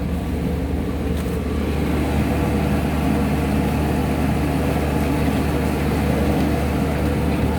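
An engine runs steadily, a constant low drone with a hum, getting a little louder about two seconds in.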